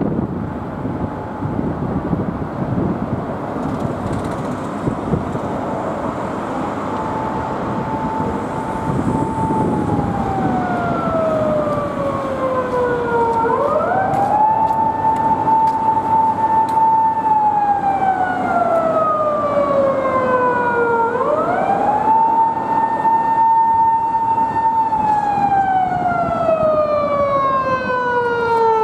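Japanese police patrol car siren (a Toyota Estima patrol car) wailing in slow cycles: each tone sweeps up quickly, holds, then slides down over several seconds. It grows louder as the car approaches, over a bed of road traffic noise.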